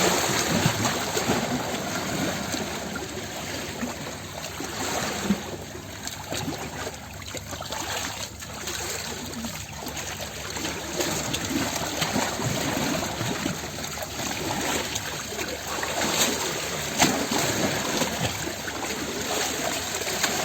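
Running water trickling and gurgling continuously, with occasional small splashes.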